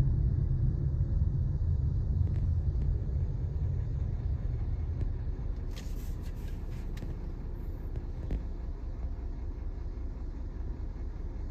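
Low rumble of a car's road and engine noise heard from inside the moving car, growing quieter over the first several seconds, with a short cluster of faint clicks a little past the middle.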